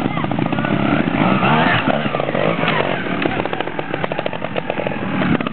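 Trials motorcycle engine revving in short bursts, its pace rising and falling, as the bike climbs over logs and onto a stump.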